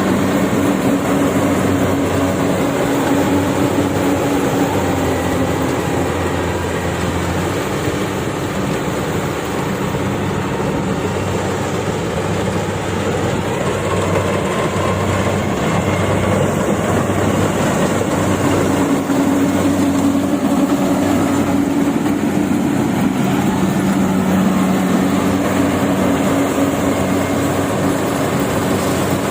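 Yanmar AW70V combine harvester running at work, its diesel engine humming steadily under the noise of the cutting and threshing machinery. The engine hum eases a little in the middle and comes back strongly about two-thirds of the way through.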